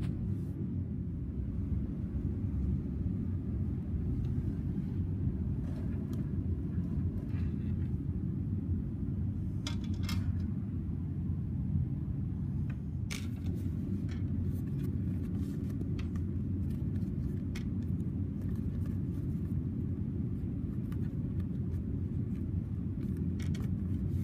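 A steady low rumble, with scattered faint clicks and light knocks through the middle and second half.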